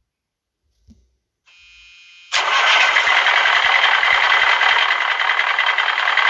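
Mack transport truck engine sound effect: a small knock, then a faint buzzing tone from about a second and a half in, then about two seconds in a loud engine starts and keeps running with an uneven low pulse.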